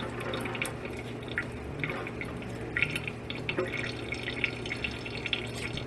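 Water dripping and splashing into a sink as a wet dreadlock is squeezed out, many small irregular drips over a faint steady hum.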